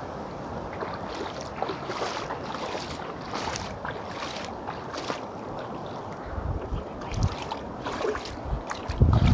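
Sea waves washing and splashing against rocks, a steady wash with short splashes. Wind buffets the microphone in deep thumps near the end, the loudest just before the close.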